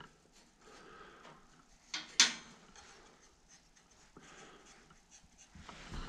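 Quiet handling of a steel bandsaw blade clamped in a blade sharpener, with a sharp metallic click a little over two seconds in, just after a softer one.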